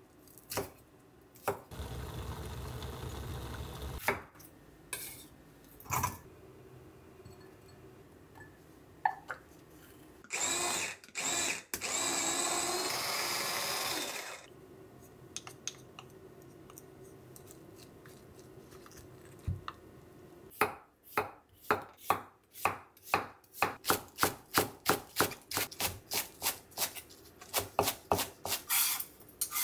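A small press-top electric food chopper whirs in three short pulses, mincing vegetables in its glass jar. Earlier there is a steady two-second burst of noise. From about two-thirds of the way through, a kitchen knife chops green onions on a wooden cutting board, about four quick strikes a second.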